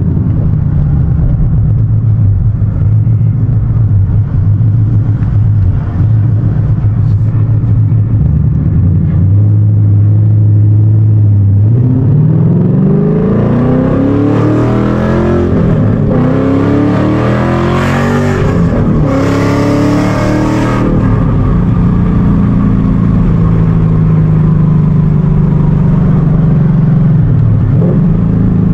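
Ford Mustang GT's 5.0 Coyote V8 with a dump exhaust, heard from inside the cabin. It runs at a steady low drone, then about twelve seconds in it is floored and the exhaust note climbs steeply through a few upshifts. It eases off into a steady cruise near the end.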